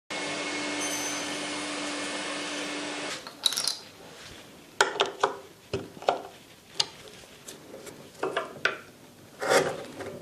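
Table saw motor running steadily with no cut being made, stopping abruptly about three seconds in. Then a string of sharp wooden knocks and clicks from small wood parts and hand tools being handled.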